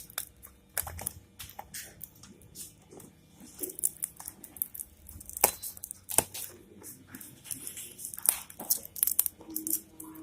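A small product box being opened and its packaging handled by hand: tearing and crinkling with many scattered clicks and rustles.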